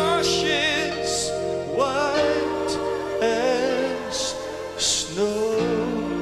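A man singing a slow gospel hymn with wide vibrato, holding long notes over sustained chords.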